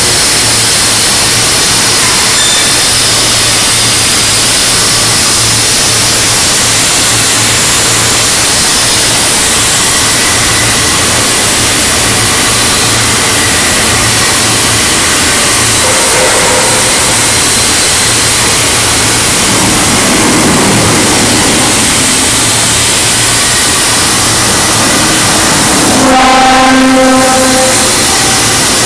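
Overhead bridge crane running in a steel shop: a loud, steady rumble with a low hum. Near the end a pitched tone sounds for about a second, the loudest moment.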